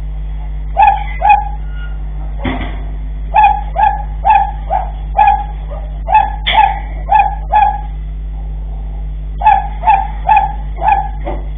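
A dog barking repeatedly in runs of short barks, about two a second, with pauses between the runs, over a steady low hum. A brief clatter sounds about two and a half seconds in.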